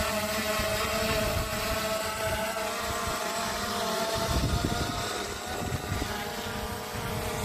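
Camera drone's propellers and motors whirring at a steady pitch while it hovers, picked up close by its own onboard microphone, with wind rumbling on the microphone and swelling briefly about four seconds in.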